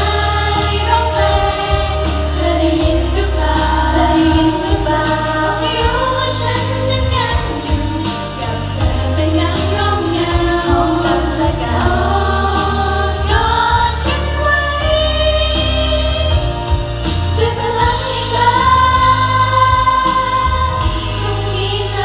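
Female idol-group vocalists singing a Thai pop song into handheld microphones over a backing track with a strong bass, heard through a concert PA.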